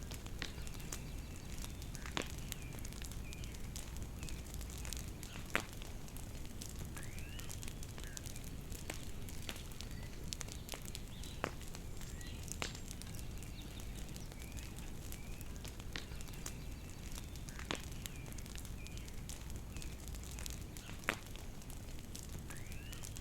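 Bonfire crackling steadily, with sharp pops every few seconds. Birds chirp throughout, with short repeated chirps and now and then a longer arching call.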